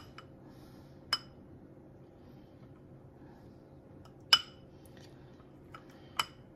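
Metal spoon clinking against a small glass bowl while stirring bouillon paste into water. There are a few separate ringing clinks spread out, the loudest about four seconds in.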